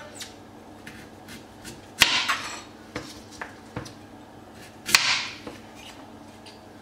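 Chef's knife chopping down through a peeled raw beetroot onto a stone chopping board: two sharp knocks about three seconds apart, each followed by a short scraping hiss, with a few light taps between.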